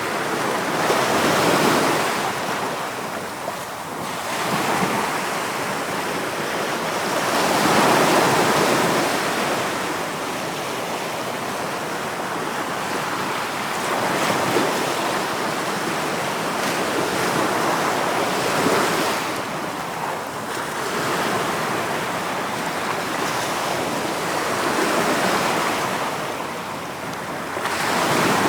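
Sea waves breaking and washing on a shore, the surf swelling and easing every few seconds, with wind in the background.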